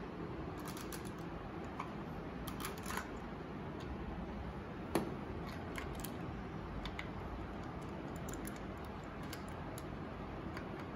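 Faint clicks and rattles of plastic LEGO pieces being handled and pulled apart, with one sharper click about five seconds in, over a steady low background hiss.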